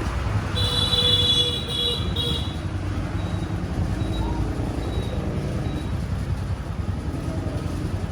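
Motorcycle engine running steadily with a low rumble. A high-pitched tone sounds for about two seconds near the start.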